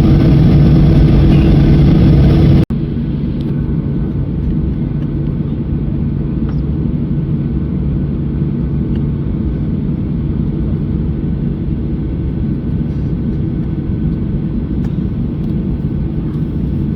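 Boeing 737-800 jet noise heard from inside the cabin: a loud, steady engine and airflow rumble with a low hum. About three seconds in it cuts abruptly to a quieter, steady cabin rumble.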